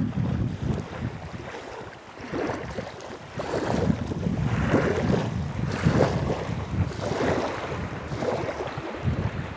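Wind gusting and buffeting the microphone, with small wind-driven waves lapping on the lake. The gusts ease about two seconds in and pick up again a second or so later.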